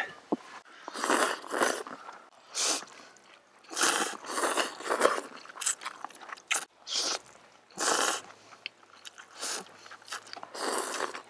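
Cold noodles (naengmyeon in iced broth) being slurped and chewed with chopsticks: a dozen or so short noisy slurps and bites, about one a second.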